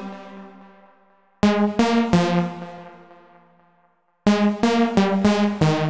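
Detuned saw lead synth, the Serum preset 'Lead Off', playing short melodic runs: three notes about a second and a half in, then a quicker run of about five notes near the end, each run ringing out and fading.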